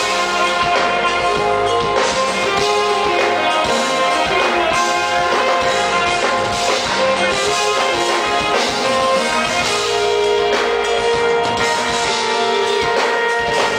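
Live smooth-jazz band playing: saxophone holding long melody notes over electric guitar, keyboards and drum kit, dropping to a lower held note about ten seconds in.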